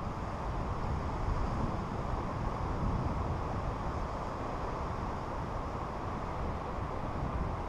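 Steady wind buffeting the microphone: a low, even rushing noise with no distinct events.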